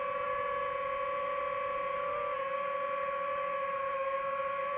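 DJI FPV drone's motors and propellers whining steadily while the drone hovers, one steady pitch with overtones that wavers briefly about two seconds in.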